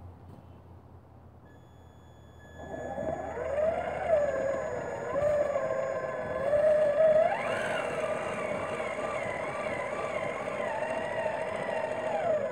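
Traxxas Summit RC crawler's electric motor and gear drivetrain whining under throttle as it drives through snow, the pitch wavering up and down with the throttle. It starts about two and a half seconds in, steps higher around halfway, then cuts off at the end.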